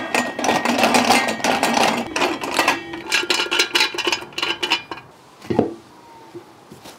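Stainless steel parts of a vertical sausage stuffer clanking, clinking and ringing as the canister is taken out and handled, with one thump about five and a half seconds in.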